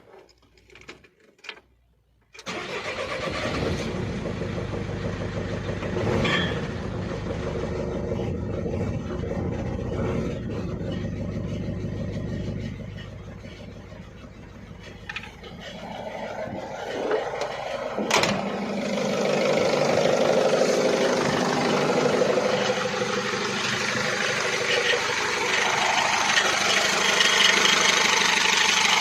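Mercedes Sprinter 2.2 diesel OM611 engine started with the gearbox removed. It catches about two and a half seconds in and keeps running, dips quieter for a couple of seconds midway, then runs louder from about twenty seconds in. The engine is being run this way to track down a knock that the mechanic thinks may come from the gearbox or the flywheel.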